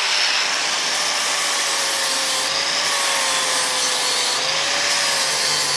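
Angle grinder with a flap disc grinding weld lumps off a cast aluminium oil sump: a steady rasping hiss over a faint, steady motor whine.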